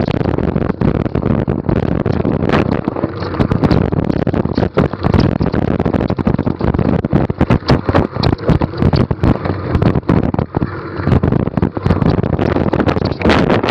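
NS Bikes mountain bike riding downhill on a rough trail: wind rushing over the microphone, with constant rattling and sharp knocks from the bike as it goes over the bumps.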